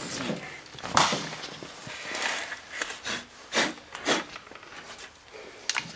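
Several short, sharp puffs of breath close to the microphone, blowing steel drill shavings off a drilled-out spot-weld seam in sheet metal.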